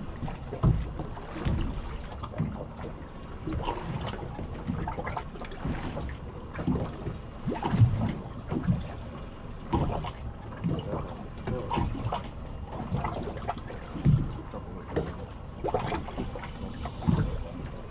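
Water slapping and lapping against the hull of a small fishing boat at sea, with irregular low thumps and short knocks.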